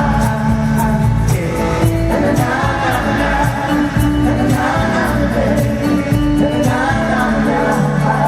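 Live pop band playing, with sung vocal harmonies over a steady drum beat and bass.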